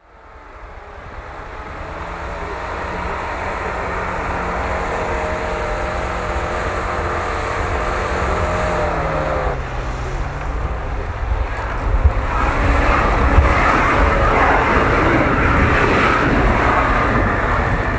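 Off-road 4x4 engine running under load while driving through deep snow, fading in over the first couple of seconds, its pitch sagging a little before a break about halfway. After that a second 4x4 is heard working hard, louder and rougher, with the rush of snow being thrown up.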